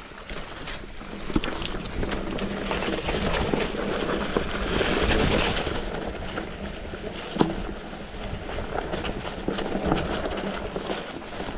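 Mountain bike running fast downhill over a rough dirt trail: tyre noise over the ground with the bike rattling and clattering over bumps, and one sharp knock about seven seconds in.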